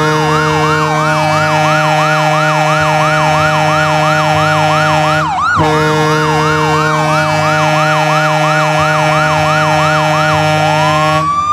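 Hockey goal horn: a loud, steady low horn tone layered with a fast yelping siren that rises and falls about three times a second. The sound breaks off briefly about five seconds in, and near the end the siren changes to a slow rising wail.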